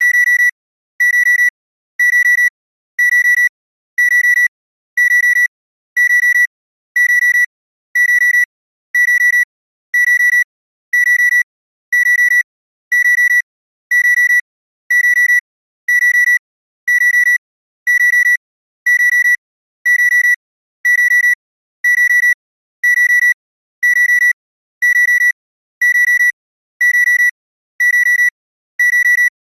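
Electronic clock sound effect: a steady high beep repeating about once a second, each beep lasting about half a second, all at the same pitch.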